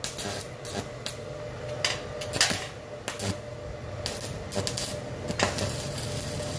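Stick-welding arc from a 3.2 mm electrode at about 150 A being struck on a steel plate: a string of separate sharp cracks and clicks as the rod is scratched and tapped and the arc keeps failing to hold, then the arc catches near the end and settles into a steady crackling hiss.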